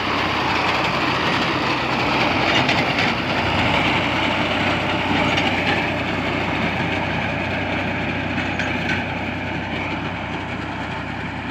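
Diesel tractor engine running steadily under load while the wheat reaper's cutter bar clatters, cutting standing wheat.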